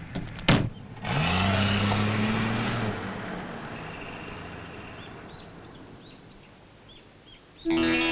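A car door slams shut, then the car's engine revs up and the car drives off, its sound fading away over several seconds. Faint bird chirps come through as it dies away, and music begins near the end.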